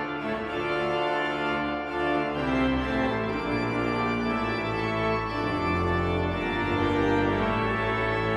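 Pipe organ playing loud sustained chords with a moving pedal bass line, the organist's feet working the wooden pedalboard.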